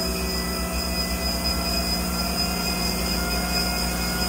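Amada CTB400 automatic vertical bandsaw running, a steady mechanical drone with a low pulsing hum under several thin whining tones that slowly rise in pitch.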